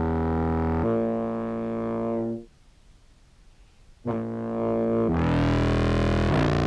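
Low, held contrabass clarinet sample notes played through an envelope filter pedal and fuzz. There is a change of note about a second in and a break of about a second and a half, then another held phrase that steps to new notes twice, the tone opening up brighter about five seconds in. Afterwards the player judges that the slow envelope filter is not quite working as intended.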